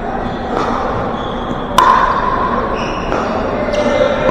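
A paddle hits a plastic pickleball once, a sharp pop about two seconds in that rings briefly in the large hall. A few fainter knocks of play sound around it over steady gym noise.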